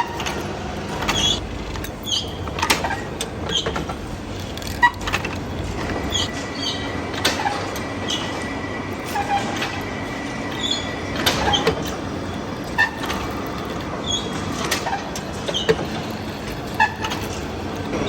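Machine-shop noise: a steady mechanical hum with frequent metallic clicks and knocks, and a thin high whine for a few seconds in the middle.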